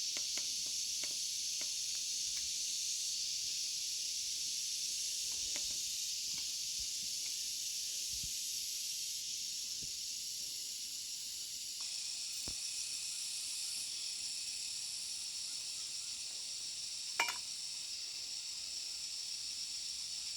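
Steady high-pitched chorus of insects droning in layered bands, with a few faint clicks and one sharper knock about seventeen seconds in.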